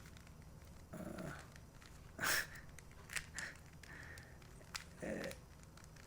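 Rubik's cube being turned with one hand, giving faint plastic clicks, along with a few short voice-like sounds. The sounds about a second in and about five seconds in each fall in pitch.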